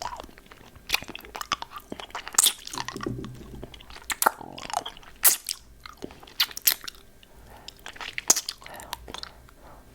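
Hard candy lollipop being bitten and crunched close to the microphone: a run of sharp, crackling crunches with wet chewing in between, stopping near the end.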